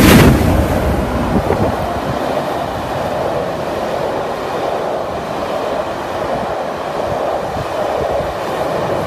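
Royal Scot steam locomotive passing just beneath, loudest right at the start. Its coaches then roll past with a steady noise of wheels on the track.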